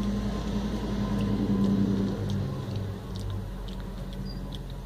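A steady low mechanical hum whose pitch shifts slightly about two seconds in, with a few faint soft ticks over it.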